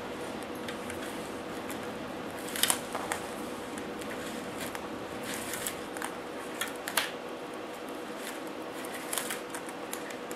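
Thin wires being handled and fed into black plastic spiral wrap: light rustling and scattered small clicks, the sharpest about two and a half and seven seconds in, over a steady faint hum.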